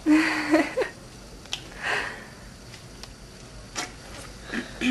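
A woman burps once from carbonated soda: a short, low, raspy belch of under a second, rising in pitch at its end. A breathy exhale follows about two seconds in, with a few faint clicks.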